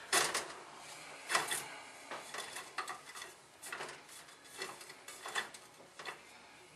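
Small hard objects being handled on a workbench: an irregular string of clicks, clinks and light knocks, the sharpest near the start and about a second and a half in, then smaller ones.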